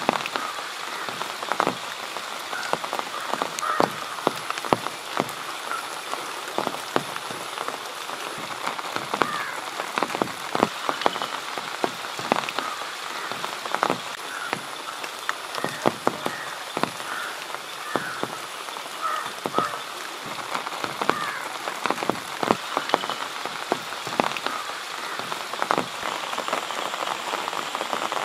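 Rain falling, with many irregular sharp drops. Frogs croak in short calls now and then, and a faint high whine comes and goes.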